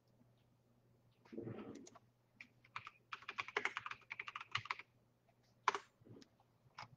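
Typing on a computer keyboard: a quick, faint run of key clicks in the middle, then a few single clicks near the end, with a soft rustle just before the typing starts.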